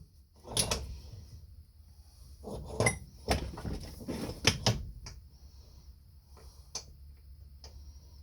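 Metal hand tools clinking and clattering as they are handled, a string of separate clanks and knocks, busiest in the first five seconds and sparser after.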